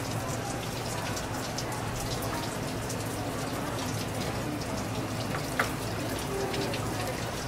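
Tap water running steadily and splattering onto a wet plastic cutting board. One sharp click about five and a half seconds in.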